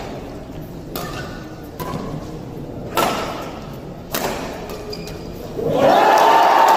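Shuttlecock struck back and forth by badminton racquets in a rally: four sharp hits about a second apart. About five and a half seconds in, the crowd breaks into cheering and applause as the point ends, louder than the hits.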